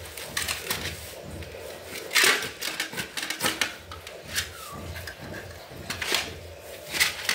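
Knife scraping the scales off a large freshwater fish held over a steel plate, in irregular strokes, the loudest a little after two seconds and near the end.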